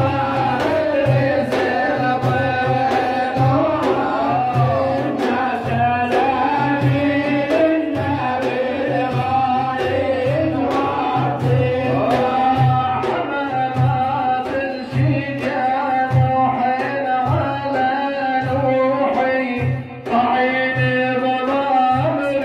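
A male religious praise singer (maddah) singing a madih, a devotional praise song, with a bending, ornamented melody. Several large frame drums (daf) beat a steady, even rhythm under the voice.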